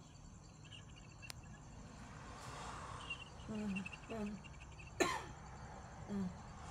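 A person coughing: a couple of short throaty sounds, then one sharp cough about five seconds in, and a last short throaty sound near the end. This is the lingering cough of a cold that has gone on for two weeks.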